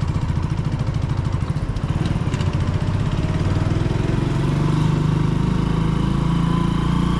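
Vehicle engine running steadily at low speed, with a fast even pulse, as it is driven slowly in to park.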